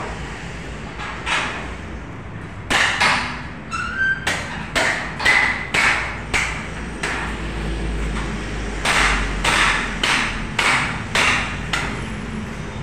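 Repeated sharp chopping knocks, about two a second in two runs with a short pause in the middle, a few with a brief metallic ping: a cleaver hacking goat meat and bone on a chopping block.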